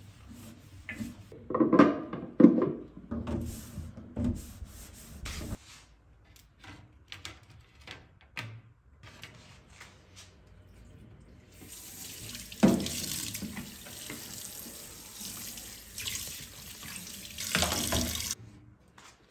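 A water tap running into a sink for about seven seconds in the second half, then shut off suddenly, with knocks of things being handled under the running water. Before it come irregular knocks and clatter, loudest about two seconds in.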